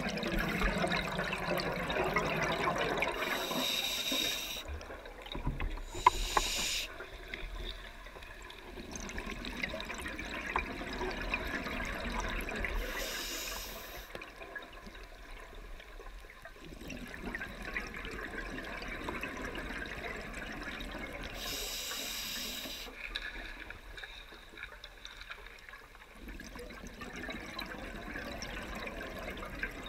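Scuba diver breathing through a regulator underwater: a short hiss on each inhale, four or five times, each exhale a long bubbling gurgle.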